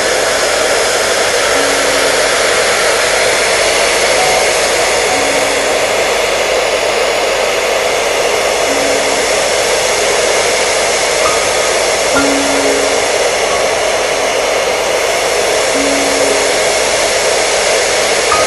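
Hair dryer running steadily, an even loud rushing noise with no change in speed. Faint short tones recur every second or two beneath it.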